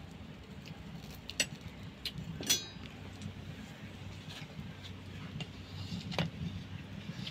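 A metal spatula clinks against an aluminium kadai in a few light taps, the clearest about two and a half seconds in with a short ring. A faint steady low hum runs underneath.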